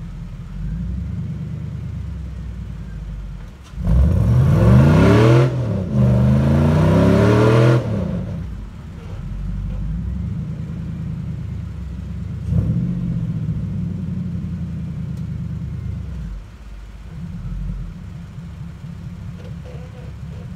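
Lifted Jeep's engine working under load as it climbs a steep rock ledge. It runs steadily, then revs hard twice, rising in pitch, between about four and eight seconds in, and revs up once more, more briefly, a little after twelve seconds.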